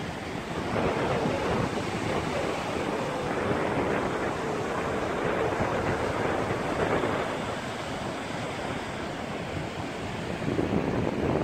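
Ocean surf washing onto a sandy beach: a steady hiss that swells and eases, with wind rumbling on the microphone, stronger near the end.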